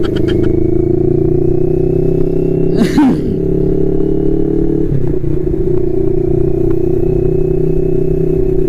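Motorcycle engine running steadily while riding at about 40–50 km/h, with wind noise. The engine pitch rises gently as the bike gathers speed, drops a little about five seconds in, and a brief burst of noise passes about three seconds in.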